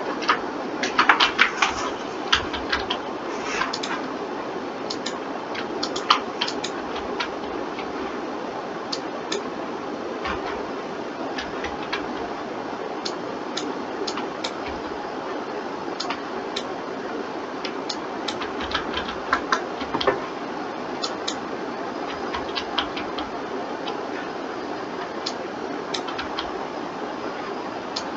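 Irregular clicking of a computer mouse and keyboard, with small flurries at the start and again around two-thirds of the way through, over a steady background hum.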